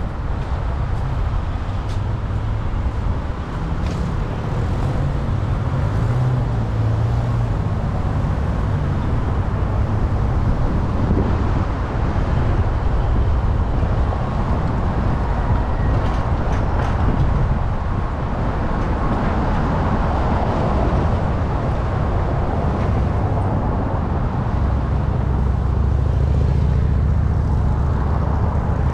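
Steady road-vehicle noise, a continuous low rumble.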